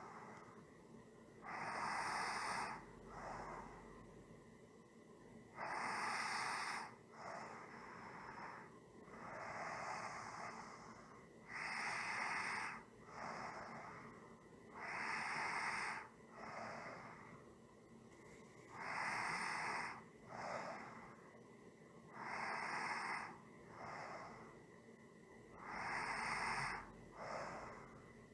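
A person breathing slowly and evenly, close to the microphone. Each breath is a louder, airy burst followed by a softer one, repeating about every three and a half seconds with no rattle or voice in it.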